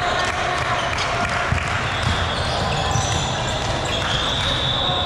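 Volleyballs bouncing and being struck in a busy gym, many short thuds over a steady background of voices.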